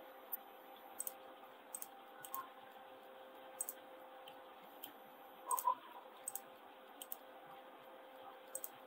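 Faint, irregular clicks of a computer mouse and keyboard, about fifteen in all, with a louder cluster about five and a half seconds in. A steady faint hum runs underneath.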